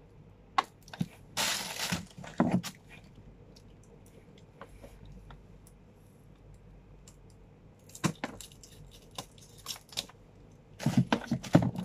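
Plastic wrapping on a small camera box being torn and peeled off, with a short rasping tear about a second and a half in. Later come scattered clicks and snips as scissors cut at the wrapping and the box is handled.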